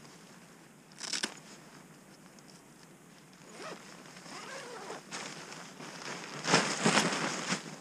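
Zipper on a nylon sleeping-bag cover being pulled in short runs, with the fabric rustling as it is handled. A brief pull comes about a second in, and the longest, loudest pull near the end.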